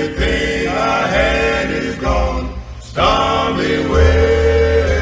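Music: a song with sung, held vocal notes over a low bass line, with a short break between two phrases about two and a half seconds in.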